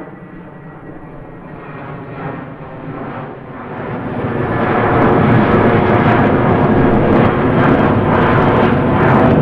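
Airplane engine noise, quieter at first, then swelling about four seconds in to a loud, steady rush as the plane comes close.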